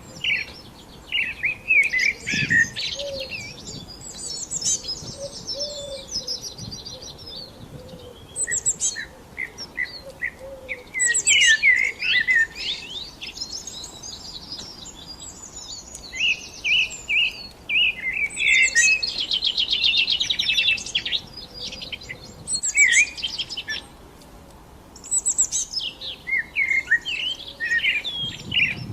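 Several small songbirds chirping and singing over one another, with quick high trills and twitters that come in clusters and ease off briefly between them.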